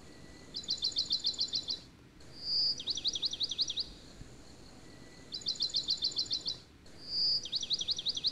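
Bird song: quick trilled chirps in phrases of about a second, two of them opened by a single clear whistle, the same pattern repeating four times.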